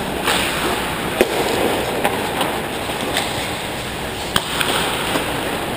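Ice hockey play: skate blades scraping the ice under a steady hiss, with a handful of sharp clacks of sticks and puck at irregular intervals.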